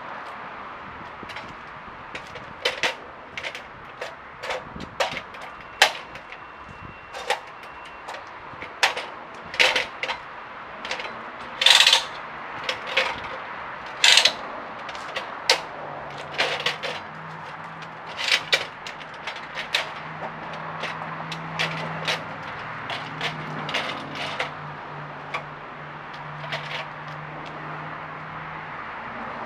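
Irregular sharp knocks and clanks, some loud and some light, with a low steady hum that starts about halfway through and stops shortly before the end.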